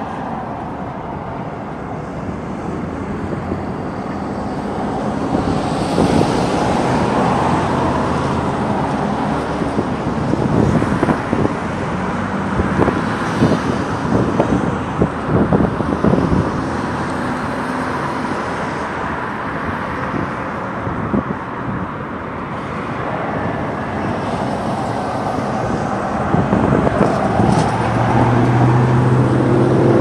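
Steady road traffic with engines running, swelling and fading as vehicles pass, and a run of short knocks about midway.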